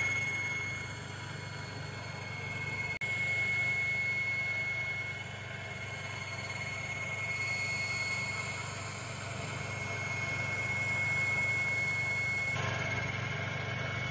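Metal lathe boring out the inside of a metal tube with a boring bar: the machine runs steadily with a low hum and a thin, steady high whine from the cut. There is a brief break about three seconds in and another change near the end.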